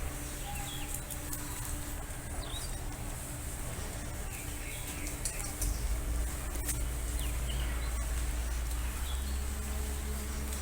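Outdoor ambience with scattered short bird chirps over a low rumble, which grows stronger about halfway through.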